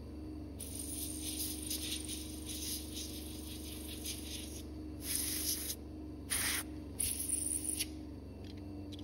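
Several bursts of hissing, the longest about four seconds and three shorter ones after it, over a steady low hum.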